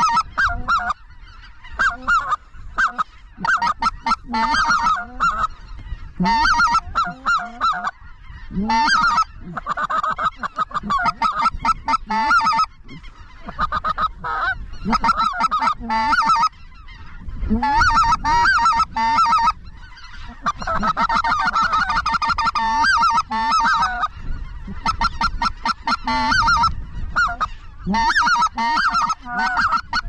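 Specklebelly (greater white-fronted goose) calling: a near-continuous run of short, high yelps and cackles, broken by a few brief pauses.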